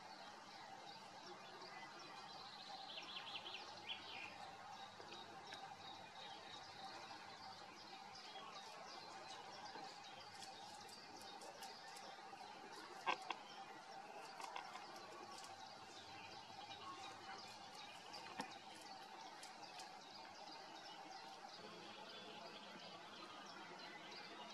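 Faint outdoor ambience: a steady background hiss with a few soft bird chirps about three seconds in. Scattered faint ticks and a couple of sharp clicks come around the middle.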